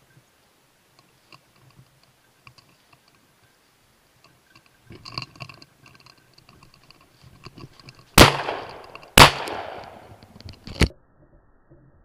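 Three shotgun shots fired at flushed woodcock in woodland. The first two come about a second apart, each with a long fading echo, and a shorter third follows about a second and a half later.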